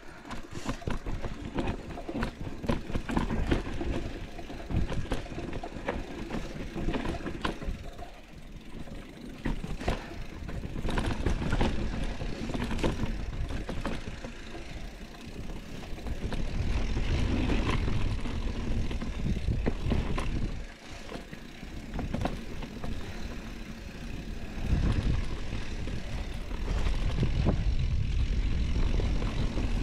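Mountain bike riding over a dirt and leaf-covered singletrack: wind rumbling on the microphone, with tyre noise and a steady stream of rattles and knocks from the bike over bumps. It grows louder for a few seconds at a time, on faster or rougher stretches.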